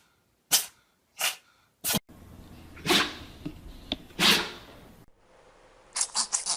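A pet sneezing repeatedly: three short, sharp sneezes about two-thirds of a second apart, then two louder sneezes, then a fast run of short puffs near the end.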